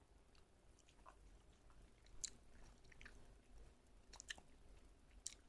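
A dog chewing, heard as faint, irregular crunches and clicks.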